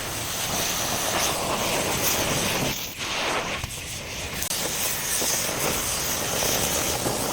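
Welding arc crackling and hissing steadily, with brief breaks about three seconds in.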